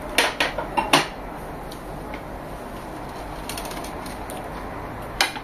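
Short clicks and knocks of dishes and eating at a table: a quick run of four in the first second and two more near the end, over a steady low hum.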